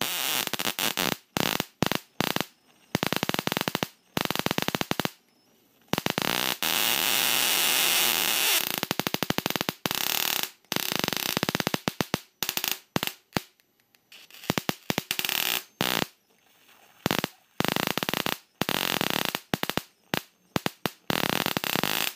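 High-voltage sparks from a flyback transformer with a Leyden jar connected, arcing about 2 cm between a screw electrode and a probe: harsh rapid snapping and buzzing in bursts that start and stop repeatedly, some short, some several seconds long.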